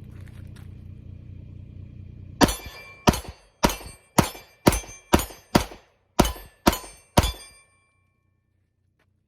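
Rapid string of ten gunshots, about two a second, each with a short metallic ring after it, typical of rounds striking a steel target. A steady low hum runs underneath before the shooting starts.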